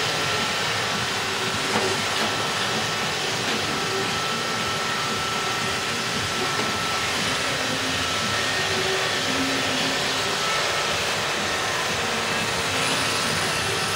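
iRobot Roomba robot vacuum running: a steady whirring hiss from its motor and brushes, with a faint constant high whine.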